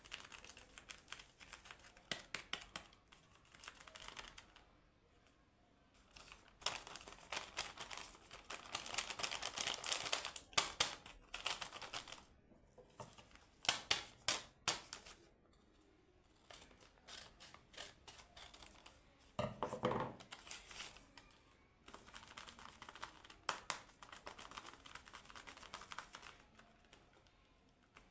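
Paper cutouts and a clear plastic sheet being handled: crinkling and rustling in irregular bursts of sharp clicky taps, with brief pauses between them.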